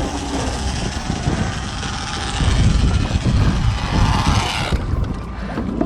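Boat engine running under a steady rushing hiss, with low uneven rumbling beneath; the hiss cuts off suddenly about five seconds in.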